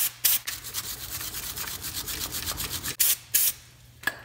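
Aerosol brake cleaner spraying onto a metal brake bracket in short hissing bursts near the start and twice near the end, with a couple of seconds of fast, scratchy rubbing between them.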